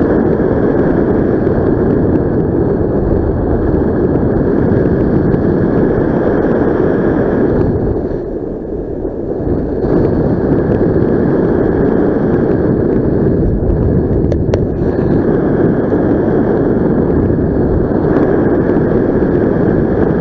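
Airflow rushing over the microphone of a paraglider in flight: a loud, steady wind rush that eases briefly about eight seconds in, then comes back.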